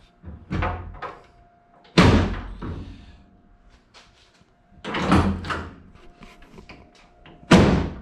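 The door of a Factory Five '35 hot rod truck kit car being slammed shut several times, loudest about two seconds in and near the end. It has to be slammed to latch because its hinges are still misaligned.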